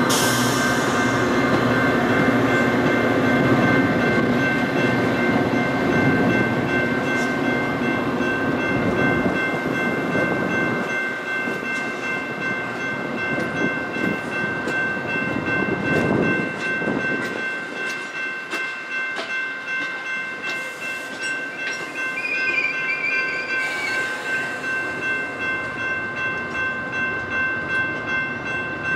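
Metra bilevel commuter coaches rolling past at a grade crossing: a loud rumble with clicking of wheels over rail joints that dies away as the last car, the cab car, goes by. A short wheel squeal comes about two-thirds of the way in, and steady ringing tones, most likely the crossing bell, run throughout.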